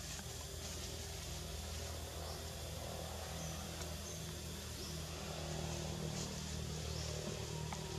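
A steady low hum, even in level throughout, over a faint hiss, with a few faint ticks.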